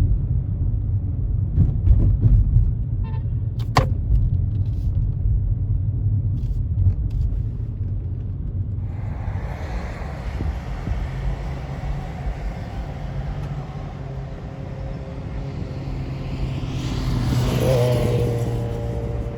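A car driving, with a steady low road-and-engine rumble. A few light clicks come in the first few seconds; about halfway a wider hiss joins the rumble, and near the end it swells louder for a couple of seconds.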